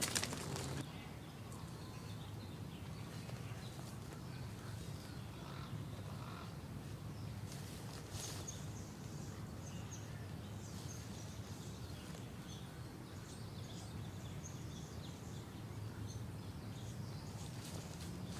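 Quiet outdoor ambience: a steady low hum with faint, scattered bird chirps.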